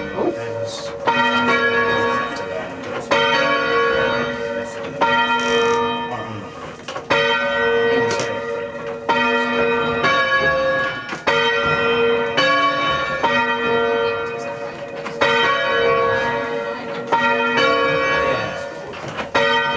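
A single church tower bell rung full circle on its rope, struck ten times about two seconds apart, each note humming on until the next strike.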